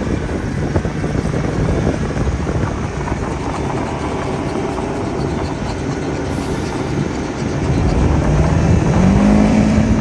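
A farm vehicle's engine running as it drives across the paddock, with rough rumbling and wind noise throughout. The engine note rises near the end.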